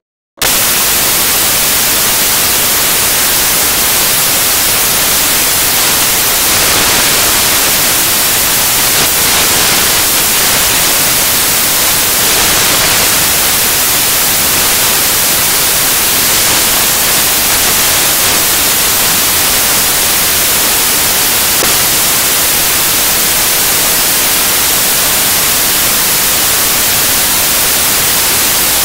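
Loud, steady static hiss like white noise, cutting in abruptly about half a second in.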